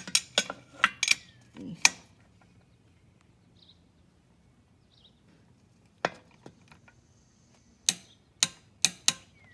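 Click-type torque wrench clicking off on exhaust bolts, each sharp click the sign that a bolt has reached its set torque. A cluster of clicks comes in the first two seconds, then a pause, then one click about six seconds in and a run of clicks near the end at about two a second.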